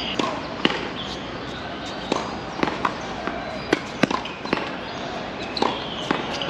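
Tennis balls struck by rackets and bouncing on the court: a string of sharp pops at irregular intervals, some close together in pairs.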